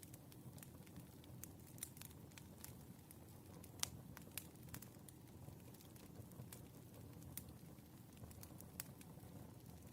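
Firewood burning: faint, irregular crackles and small pops over a low steady rumble, with one sharper pop about four seconds in.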